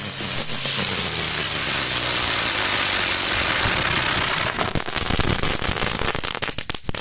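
Allevi Art Fireworks giant ground flower (fiorellino gigante) spinning on the ground with a loud, steady hiss of sparks. About four and a half seconds in it breaks into dense, sharp crackling.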